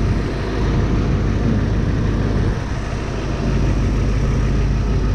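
Aviation fuel truck's engine idling steadily, a constant low hum.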